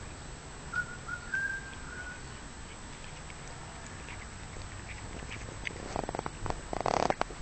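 A pet eating grass, heard as a quick run of crunching, tearing clicks near the end. About a second in there is a brief thin whistle-like tone that rises slightly.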